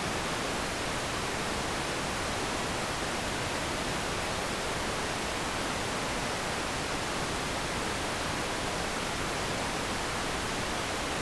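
Analog TV static: a steady, even hiss of white noise from a television tuned to no signal, unchanging throughout.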